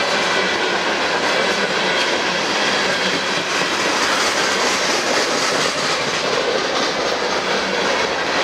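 Loaded coal hopper cars of a freight train rolling past, a steady rumble and clatter of steel wheels on rail with faint high-pitched wheel squeal over it.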